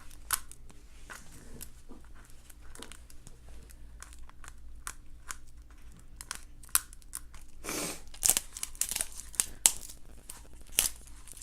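Plastic wrapper of a toy blind package crinkling and tearing as it is opened by hand: scattered crackles and clicks, with a louder rustling tear about eight seconds in.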